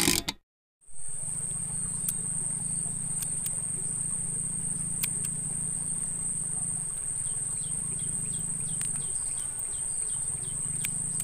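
Insects shrilling in one steady high-pitched note, with a few sharp clicks of scissors snipping raw shrimp into bait. A brief swish from the intro title effect sounds at the very start.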